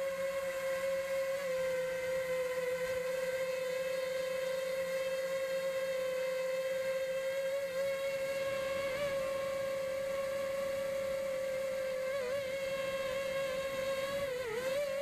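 FPV racing quadcopter with four 2205 2300 kV brushless motors on a 4S LiPo battery, in flight: a steady propeller whine that wavers briefly in pitch a few times with throttle corrections.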